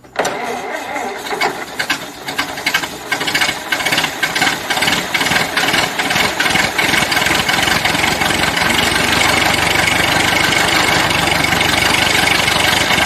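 A recorded car engine sound effect playing back: the engine cuts in suddenly and runs unevenly at first, then settles into a steady run.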